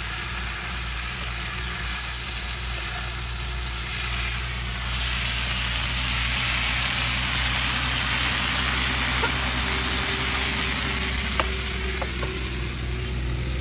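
Pasta sizzling in a pan on the camp stove, over a steady low hum. The sizzle grows louder about four seconds in, and a few sharp clicks come near the end.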